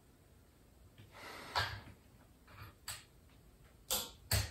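Hands handling a ceiling-mounted light fixture and its cord. There is a short rustle about a second in, then a few sharp clicks and knocks near the end, the last with a low thump.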